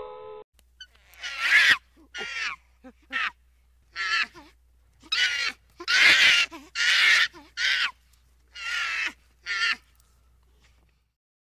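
Barbary macaque giving a series of about ten short, harsh, raspy calls, roughly one a second, which stop about ten seconds in.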